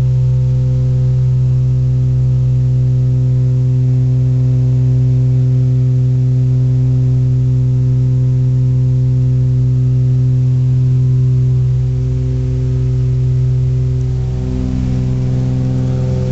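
Cabin drone of a Britten-Norman Trislander in flight: its Lycoming O-540 six-cylinder piston engines and propellers running, a loud steady hum with several fixed tones. The tones shift and the level dips slightly about twelve seconds in and again near the end.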